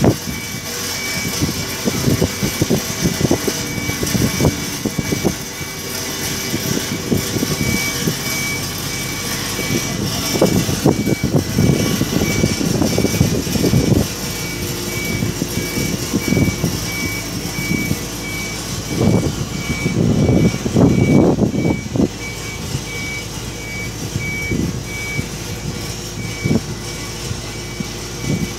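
Heavy crane machinery running while it lowers a reverse-circulation drill's bottom-hole assembly, with a high warning beep repeating at an even pace over uneven low rumbles that rise and fall.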